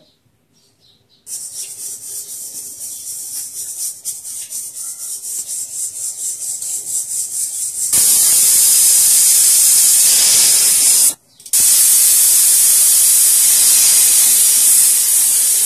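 Aluminium pressure cooker on a gas burner releasing steam through its whistle weight: a hiss with fast fluttering as the weight starts to lift, then about halfway a loud steady whistle-hiss of full pressure. The hiss breaks off briefly and resumes, marking the whistles counted to cook the bottle gourd.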